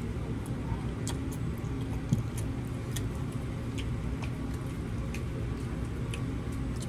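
Mouth chewing a forkful of pasta, with a metal fork clicking and scraping in the bowl as small scattered clicks, over a steady low hum.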